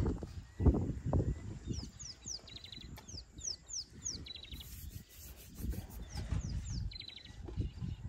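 Young African elephant feeding close by, with low irregular crunching and rustling, loudest about a second in. Over it a songbird calls again and again in quick downward-sweeping notes and short buzzy trills.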